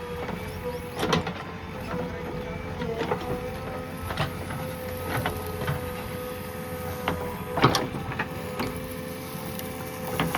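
JCB 3DX backhoe loader running, its diesel engine and hydraulics giving a steady whine over a low rumble, with scattered sharp knocks and clanks of the machine at work.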